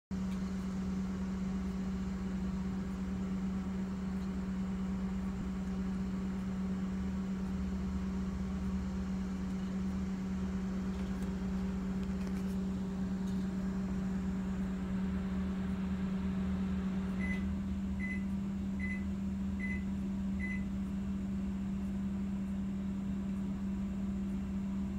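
A steady low machine hum. About two-thirds of the way through, a higher tone in the hum stops and five short, high beeps follow, evenly spaced a little under a second apart.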